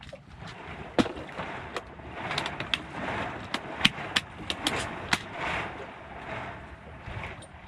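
A dozen or so sharp clicks and knocks at irregular intervals, the loudest about a second in and just before four seconds in, over a hissing wash that swells and fades.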